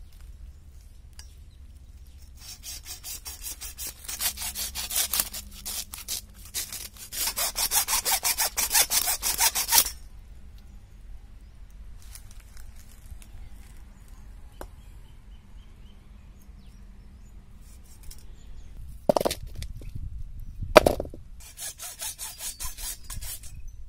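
Hand hacksaw cutting through cow leg bone in quick back-and-forth strokes, loudest in the first half. The sawing stops for several seconds, then two sharp knocks sound and the sawing starts again near the end.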